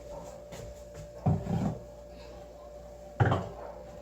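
Two dull knocks of kitchen items being handled on a counter, about a second and a quarter in and again near three seconds in, over a faint steady hum.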